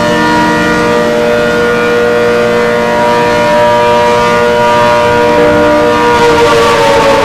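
ACA Hurricane outdoor warning siren sounding loud, a steady chord of several tones held together. About six seconds in, the pitch begins to slide down.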